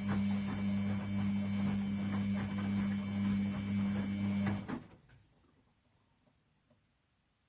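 Washing machine running with a steady low hum and scattered light clicks, then cutting off abruptly about two-thirds of the way in.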